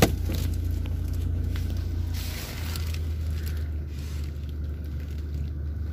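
Steady low hum inside a Toyota Kijang Innova's cabin, with a sharp click at the start and a few light clicks and rustles from handling.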